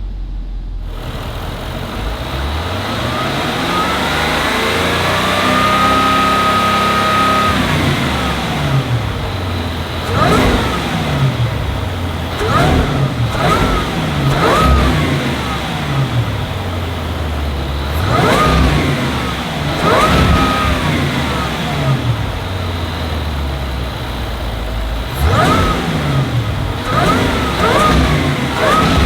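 Supercharged 5.0-litre V8 of a 2025 Land Rover Defender 110 revving through its exhaust. It makes one slow climb to a high rev, holds there for about a second and a half and drops back. Then comes a string of about ten quick, sharp throttle blips, the revs falling back between each.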